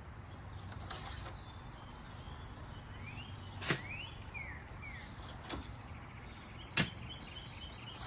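A few sharp clicks or taps, the loudest about a third of the way in and again near the end, over low steady background noise. Birds chirp briefly in the background, with quick rising and falling notes near the middle.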